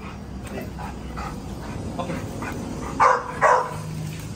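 A dog barks twice, two loud barks about half a second apart near the end.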